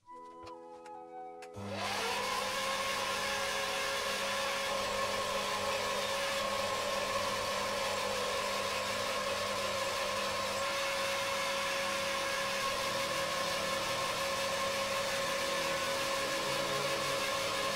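Benchtop mini metal lathe starting up about a second and a half in, its motor whine rising quickly to a steady pitch, then running steadily while the tool bit takes a facing cut across the end of an aluminium block.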